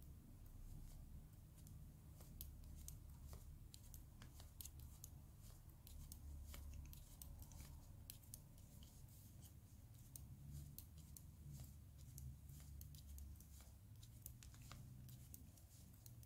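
Faint, irregular clicking and tapping of metal knitting needles while knitting white yarn in garter stitch, over a low steady hum.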